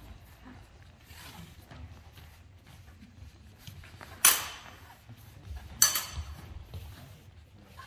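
Two sharp metallic clashes of steel rapier blades about a second and a half apart, the second ringing briefly and followed by a few lighter clicks of blade on blade, over the fencers' soft footfalls on the mat.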